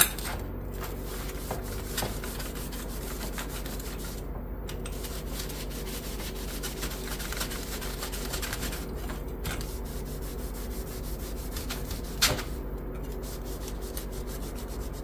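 Cloth shop rag rubbing back and forth across a steel plate in quick repeated scrubbing strokes, with a few brief pauses. It is wiping off the loose black rust residue left by electrolytic rust removal, which comes off easily.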